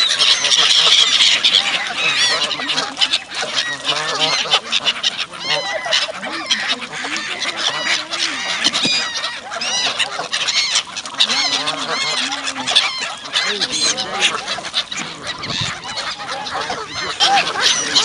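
A flock of Canada geese honking together with many gulls calling, a dense, continuous din of overlapping calls from birds crowding in to be fed.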